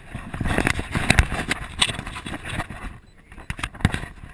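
Scraping, rubbing and knocking of a head-mounted action camera being pulled off and handled, right against its microphone; the handling eases off about three seconds in, with two sharp knocks near the end.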